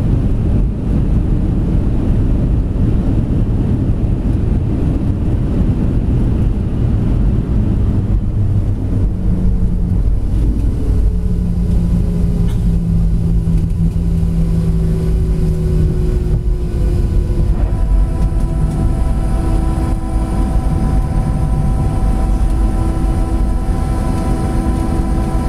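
Boeing 737-700 cabin noise over the wing during landing rollout: a loud, dense rumble as the jet decelerates on the runway, with an engine tone falling slowly in pitch as it slows. About two-thirds of the way through, a steadier, higher-pitched whine of the CFM56 engines settles in as it slows to taxi speed.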